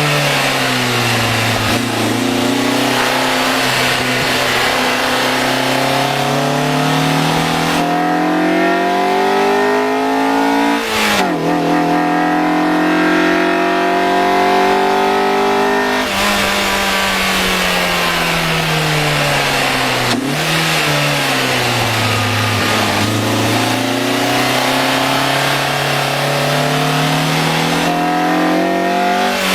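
Honda Accord Euro R engine pulling hard, its pitch climbing steadily and dropping sharply at a gear change about eleven seconds in. It keeps climbing, then the throttle is lifted around sixteen seconds and the pitch sinks slowly before the engine pulls again toward the end.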